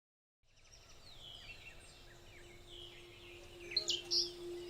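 Birds chirping and calling outdoors, fading in after a brief silence and growing louder toward the end, over a faint steady low hum.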